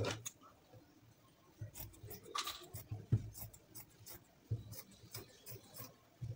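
Scissors cutting through folded fabric: a series of quiet, irregular snips.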